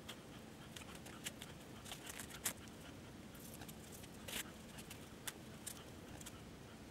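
Faint scattered taps and clicks of a small brush working insulating varnish into a transformer's windings and laminations, over a low steady hum.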